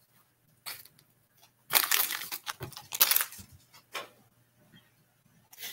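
Foil Pokémon booster pack wrapper crinkling and tearing as it is handled and opened, in several short rustling bursts.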